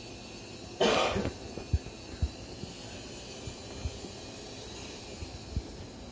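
A single short cough about a second in, followed by a few faint low thumps.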